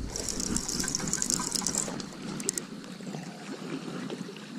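Centerpin fishing reel spinning with a rapid run of clicks for about two seconds as a hooked coho salmon pulls line, then a few more clicks, over a steady low rumble.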